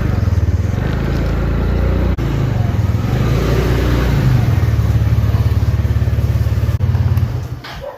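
Motor scooter engine running steadily while being ridden, fading away near the end.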